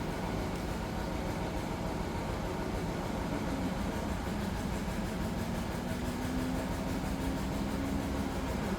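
Steady low mechanical rumble of a running engine, with a low hum that rises slightly in pitch over the second half.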